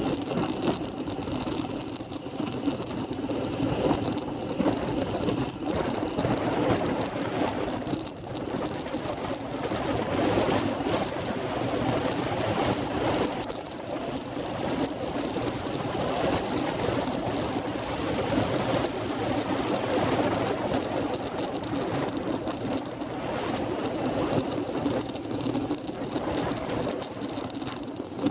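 Road bicycle descending at speed: steady wind rush over a dense, fast rattle of road vibration.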